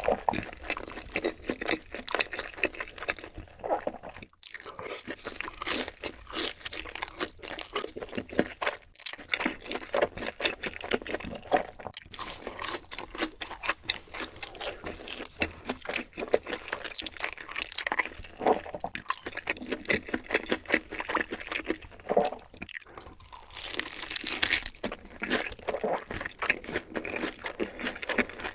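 Close-miked eating: crunchy bites and chewing, a dense, continuous run of crisp crackles with short pauses.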